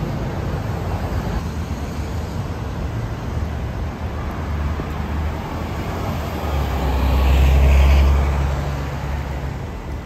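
City street traffic noise, with a double-decker bus passing close: its engine rumble and hum swell up from about six seconds in, peak near eight seconds, and fade away.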